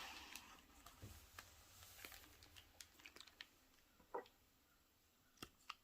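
Near silence with faint scratches and light ticks of a broad-nib fountain pen working ink on paper: a soft scratchy stretch in the first couple of seconds, then sparse small clicks, the clearest about four seconds in and twice more near the end.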